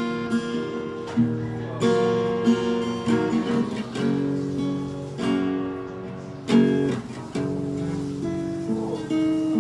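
Solo acoustic guitar playing a slow passage: chords struck and left to ring, with a new chord or note group about every second.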